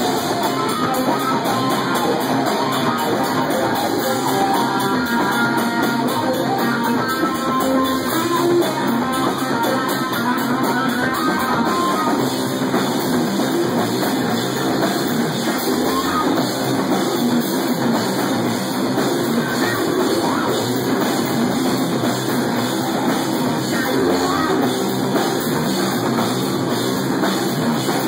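A stoner metal band playing live, electric guitar and drum kit at a steady loud level.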